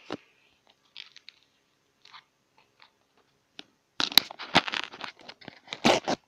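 Foil wrapper of a Panini sticker packet being torn open and crinkled: a few faint rustles and clicks, then a dense burst of loud crackling about four seconds in that lasts about two seconds.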